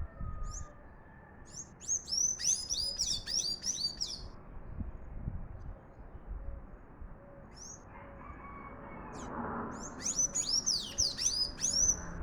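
A sanhaço tanager singing: two bouts of fast, squeaky high notes, each about two to three seconds long, with a few scattered single notes between them.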